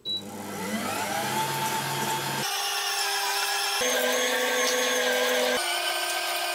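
Wollmer M909 Monolith electric meat grinder starting up with a rising whine, then running steadily as it minces beef with the sinews left on. Its pitch steps abruptly to a new note three times.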